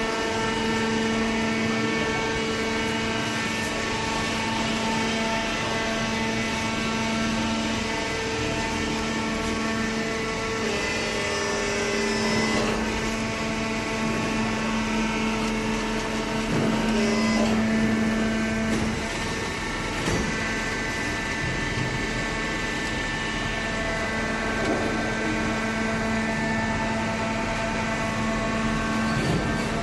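Horizontal cardboard baler running: a steady hydraulic pump and motor hum over mechanical noise, with a few brief knocks around the middle.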